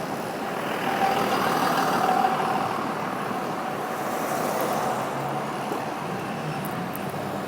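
Street traffic: a motor vehicle running past, a steady engine-and-road noise that swells about a second or two in and then eases off.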